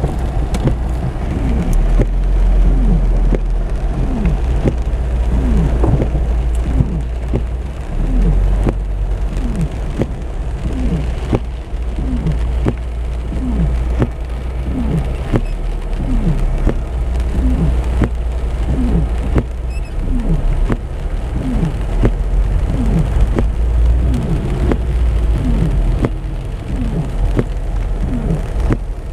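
Heavy rain pelting a car's roof and windshield, heard from inside the cabin over a low rumble, with a short falling tone that repeats a little more than once a second.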